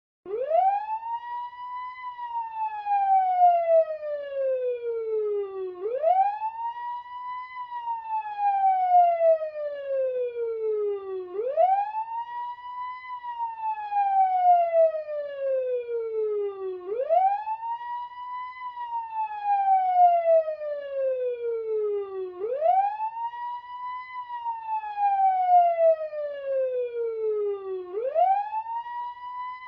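Fire engine siren wailing in a slow cycle: the pitch climbs quickly for about two seconds, then slides slowly down for about three and a half, repeating roughly every five and a half seconds.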